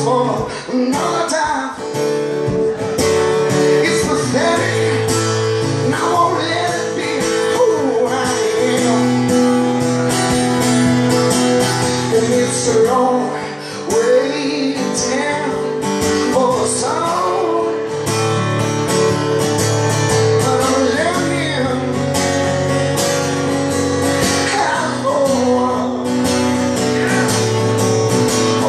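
Acoustic guitar strummed steadily while a man sings over it.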